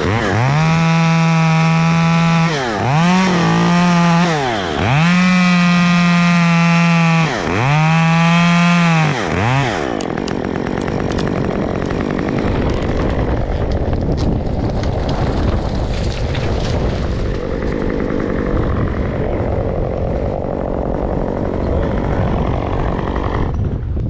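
Two-stroke chainsaw held at full throttle in four long bursts, the revs dropping briefly between them, then stopping about ten seconds in. After that, steady wind noise on the microphone.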